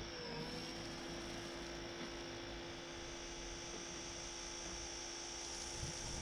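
Portable pressure washer running with a steady hum and a thin high whine while snow foam is sprayed through its foam lance. Its pitch dips briefly near the start.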